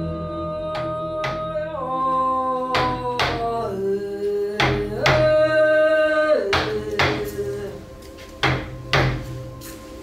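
Trailer soundtrack music: sustained chords that step down in pitch every second or two, punctuated by sharp percussive hits, more widely spaced near the end.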